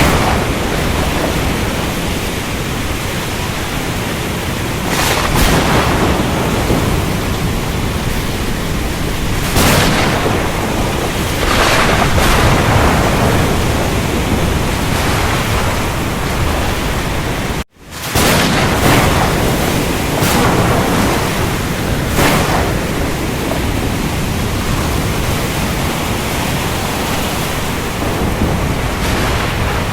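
Storm ambience over the ocean: a dense, steady wash of rain and surf with a low rumble, swelling every few seconds as waves break. About two-thirds through, the sound cuts out for an instant and then resumes, like a splice in a loop.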